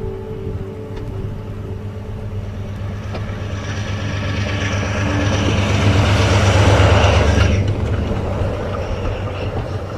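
Train approaching, its engine rumble and a rushing noise building to a peak about seven seconds in, then falling away sharply.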